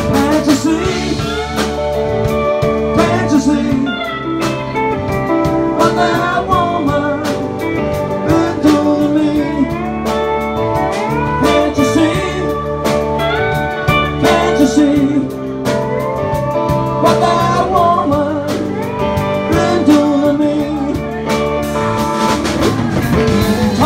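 Live blues band playing an instrumental break: a lap steel guitar takes a solo of sliding notes over electric bass, electric guitar and drum kit.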